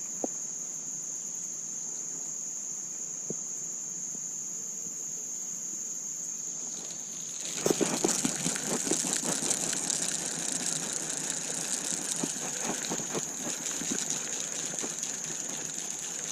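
Steady, high-pitched chirring of crickets. About halfway through, a louder rattling, rustling noise starts and keeps going.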